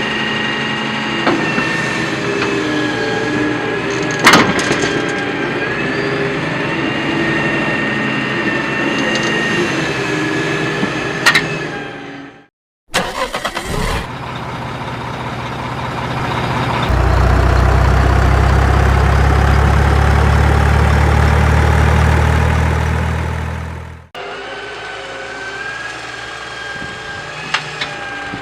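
Small electric motors and gears of radio-controlled model trucks whining steadily, with a few sharp clicks, in several clips cut together. A much louder low drone comes in for several seconds in the middle and cuts off suddenly.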